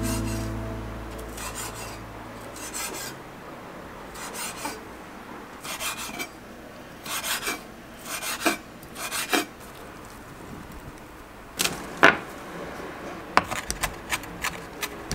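Salad vegetables being prepared by hand in the kitchen: a series of short scraping strokes, a second or two apart at first, then quicker, with a sharper knock about twelve seconds in.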